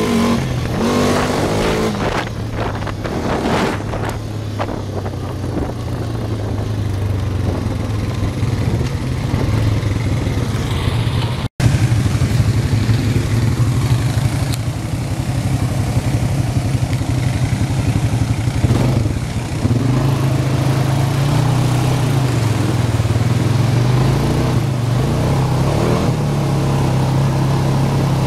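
ATV engine running while riding, its pitch rising and falling with the throttle. The sound drops out for an instant a little over a third of the way in.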